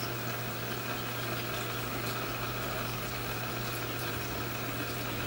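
Steady low hum of a swimming-pool pump motor running without change.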